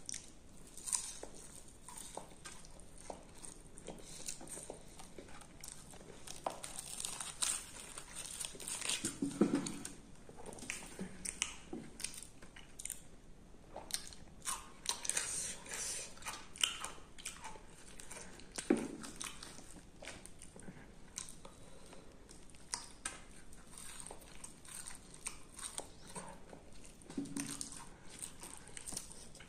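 A person chewing and biting mouthfuls of puri close to the microphone: irregular wet mouth clicks and smacks, with a few louder, deeper sounds now and then.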